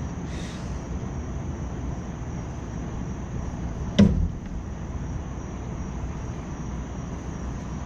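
Steady low rumble, with one sharp knock about four seconds in.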